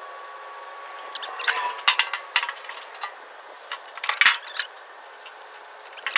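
Clinks and knocks from handling a quart can of fuel-tank sealer at an aluminum fuel tank, in two short bursts about a second and four seconds in, over a faint steady hum that fades out early on.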